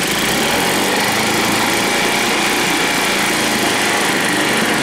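Soviet Veterok-8 two-stroke outboard motor running steadily on a test stand, its leg in a barrel of water that churns and foams.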